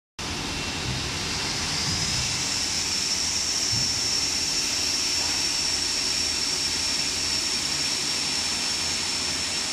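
SOSN DZ-3300 computer beam saw running: a loud steady machine noise with a high-pitched whine that rises a little about two seconds in, then holds steady.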